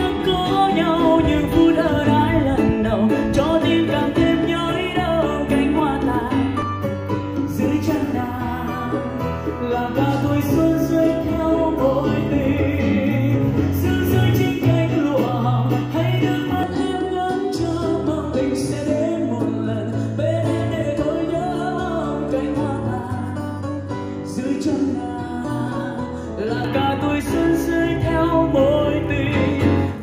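A song with a singing voice and guitar accompaniment played back through a Bose SoundLink Revolve+ portable Bluetooth speaker at half volume, heard from about 1.5 m away in a room.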